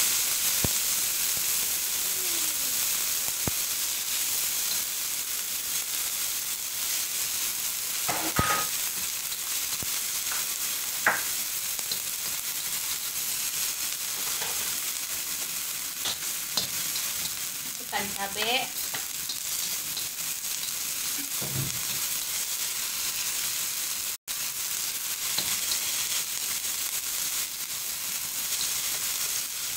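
Pounded shallot, garlic and chili paste sizzling steadily in hot olive oil in a steel wok, stirred with a spatula that scrapes and taps against the pan.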